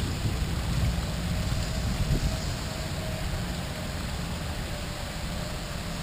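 Steady rush of water from a small artificial rock waterfall spilling into a pond, over a low rumble.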